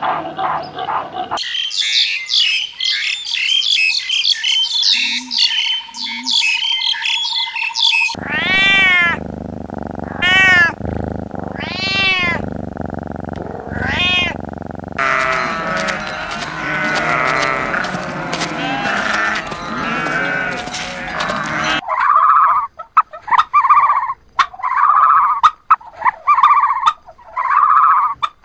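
A run of different animal calls, each cut in abruptly. It opens with a dense stretch of high chirping. A domestic cat then meows about four times, followed by a thick stretch of overlapping calls and, near the end, a series of short, evenly spaced calls.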